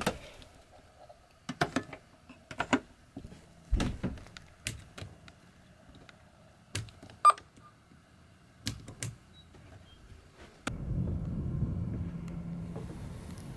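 Sharp clicks as rocker switches on a boat's electrical switch panel are flipped one after another, with a short electronic beep midway. About eleven seconds in, a steady low engine hum starts abruptly.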